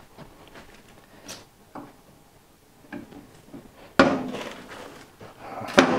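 Two sharp metallic clunks with a short ringing decay, about four and nearly six seconds in, from handling the cast-iron tables of a planer thicknesser. Before them come faint taps and rustling.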